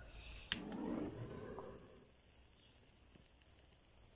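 A sharp click about half a second in, then a second or so of rushing noise as a hand-held gas torch on a gas canister fires up to light kindling in a brick barbecue's firebox. After that, a faint steady hiss.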